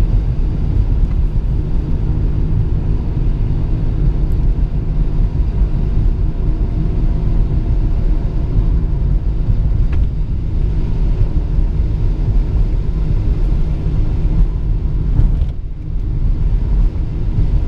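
Steady low rumble of a car being driven, heard from inside the cabin: engine and tyre noise on wet pavement. It dips briefly about fifteen seconds in.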